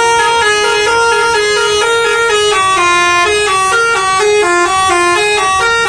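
Telolet bus horn playing its multi-note tune: several horn tones sounding together, stepping from note to note, loud and continuous, then cutting off suddenly at the end.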